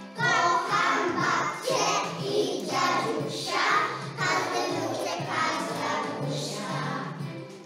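A group of young children singing a song together in unison, coming in suddenly at the start.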